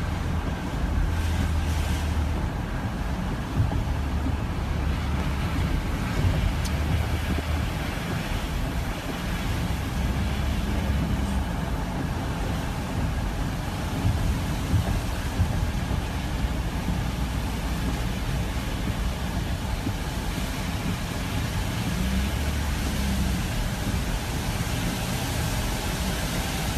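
Steady driving noise from inside a car on a rain-soaked road in hurricane winds: a low engine and tyre rumble with a hiss of wind and rain on the car.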